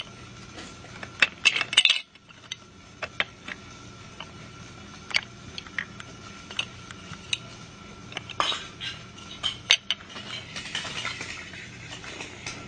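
Small hard toy-train pieces clicking and clinking as they are handled and set back on the track: scattered sharp clicks and knocks over a faint steady hum.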